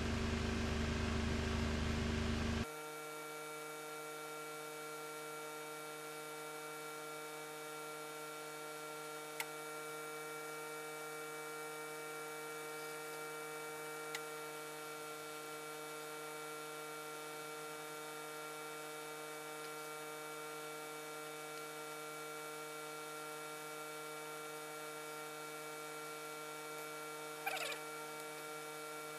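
Steady electrical mains hum made up of several level tones. The broader room noise cuts off abruptly about three seconds in, leaving only the hum, broken by two faint clicks and a brief short sound near the end.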